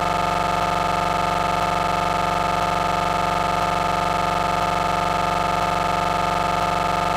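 A loud, steady electronic drone of several held tones at once, never changing in pitch or level, with a faint tick about once a second.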